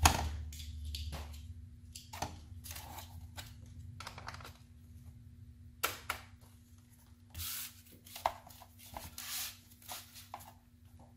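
Plastic automotive instrument cluster being handled on a workbench: a sharp knock right at the start, then scattered clicks, scrapes and rustles of plastic against a foam sheet, with a faint steady hum underneath.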